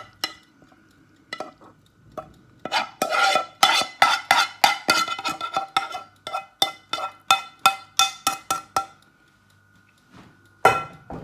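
A utensil scraping and knocking against a pan as stir fry is scraped out into a bowl: a rapid series of clinks and scrapes, several a second, with one loud knock near the end.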